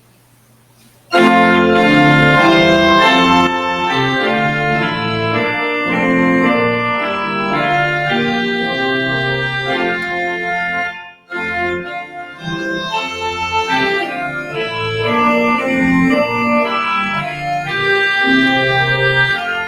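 Organ playing a prelude of sustained chords, starting abruptly about a second in, with a short break about halfway through.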